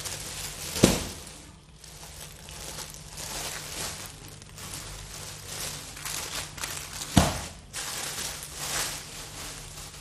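Plastic-bagged packs of foil balloons crinkling and rustling as they are handled and shuffled, with two sharp slaps, about a second in and again about seven seconds in, as packs are dropped onto the tile floor.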